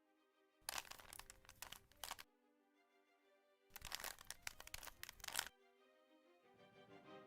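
Rapid clicking and clattering of a 3x3 Rubik's Cube's plastic layers being twisted fast, in two bursts of nearly two seconds each, over quiet background music with sustained notes.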